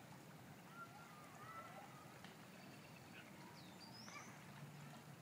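Frogs calling faintly, scattered short chirps and whistles over a low steady background hum.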